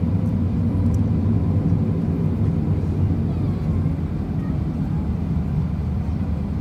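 Airbus A320 engines and airframe heard from inside the cabin as the airliner rolls slowly on the ground: a steady low rumble with a faint steady whine over it.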